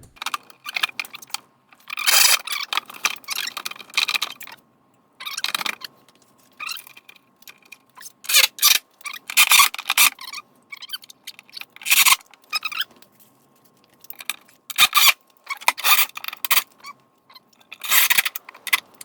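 Tools and hardware working on a car's underbody panel: short bursts of scraping and rattling, on and off, as a bolt is started into a U-nut and the panel is fitted.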